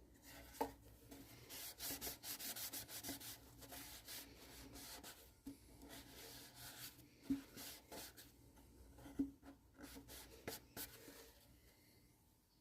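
Faint, repeated rubbing strokes of a cloth pad over the wooden body of a ukulele kit, wiping on a friction-polish finish ('shine juice'); the strokes thin out near the end.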